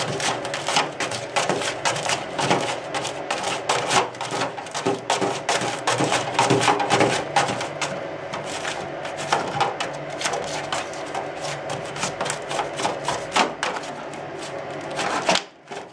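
A cat digging with its paws at plastic, a dense, continuous run of quick scratches and rustles that stops suddenly near the end.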